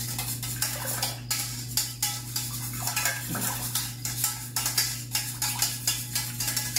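Wire whisk beating instant vanilla pudding and milk in a stainless steel mixing bowl, a quick, continuous run of metal clicks and scrapes against the bowl.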